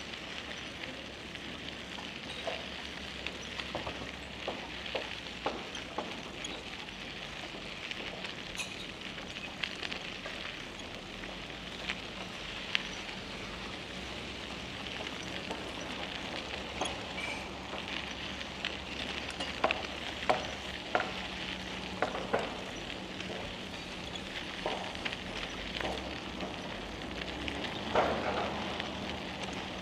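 A bicycle rolling along a path: a steady hiss of tyre and riding noise with scattered clicks and rattles, a cluster of louder knocks about two-thirds of the way through and another near the end.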